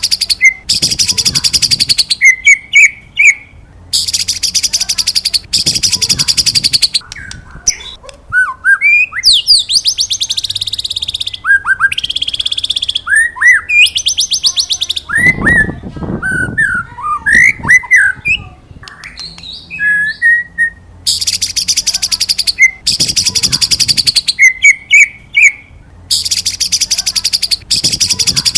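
White-rumped shama (murai batu) singing: short, clear whistled notes alternate with harsh, rapid high-pitched trills about a second long, repeated again and again.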